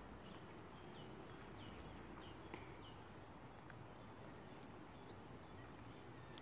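Near silence with faint, short high chirps of a small bird, repeated several times in the first few seconds.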